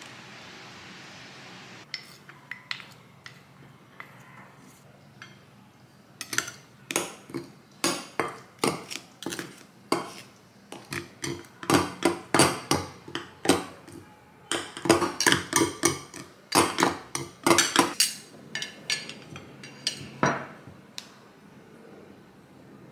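Two table knives cutting butter into flour in a ceramic bowl. The blades scrape and clink against each other and the bowl in quick repeated strokes, about two a second, loudest in the middle stretch. They stop shortly before the end.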